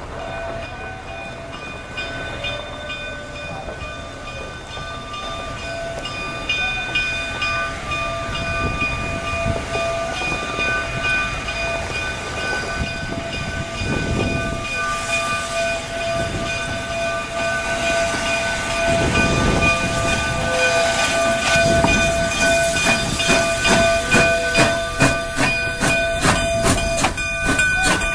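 Narrow-gauge steam train moving through the station, growing louder, with steam hissing and steady high-pitched ringing tones. A rapid run of clicks builds up near the end.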